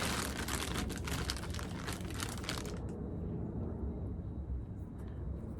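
Plastic packaging crinkling and rustling as it is handled: a dense crackle that stops about halfway through, leaving a low background rumble.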